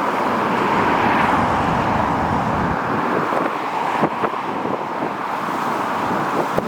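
Strong gusty wind buffeting the microphone in uneven crackles, over a steady rushing roar.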